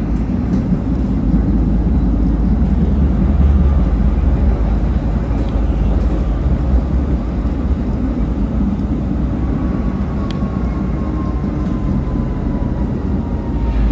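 Tram running, heard from inside the car: a steady low rumble of wheels on rails. A faint whine slides slowly down in pitch over the last few seconds.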